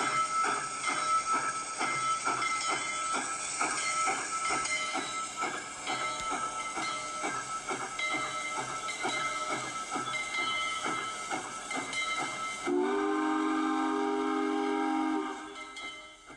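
Steam locomotive bell ringing steadily at about two strikes a second over hissing steam. About thirteen seconds in, a steam whistle sounds a chord of several tones for about two seconds, then fades away.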